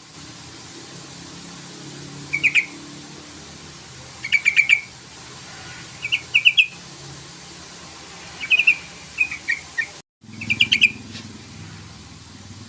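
Yellow-vented bulbul (trucukan) calling: about six short, loud phrases of three to five rapid chattering notes, spaced every second or two, over a low steady background hum. The sound drops out completely for a moment just after the tenth second.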